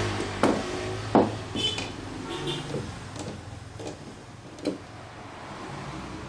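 Sharp wooden knocks and light clatter of a plywood shipping crate being handled. There are two louder knocks in the first second or so, then softer taps and a few short squeaks.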